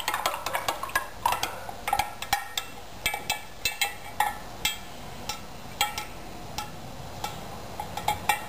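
A spoon stirring liquid in a glass jar, knocking against the glass walls in sharp, irregular clinks, about two a second.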